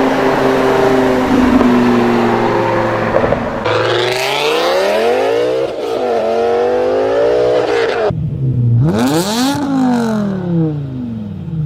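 BMW M5 E60's V10 engine: first its note sinks slowly under a loud rushing noise, then it pulls hard with the pitch climbing for about two seconds. After an abrupt cut it is blipped in one quick rev that rises sharply and falls away.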